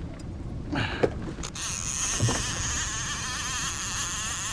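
Fishing reel whirring steadily for about three seconds as line moves through it, starting about a second and a half in and cutting off near the end, over the low drone of the trolling boat's motor.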